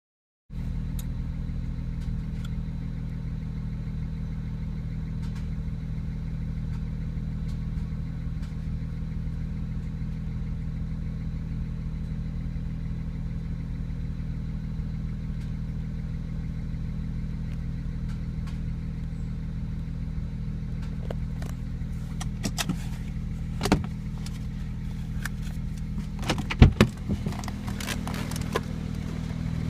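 BMW N54 twin-turbo straight-six in a 2008 335xi, running steadily at what sounds like idle; the owner is chasing misfires that come and go. Several sharp clicks and knocks come near the end.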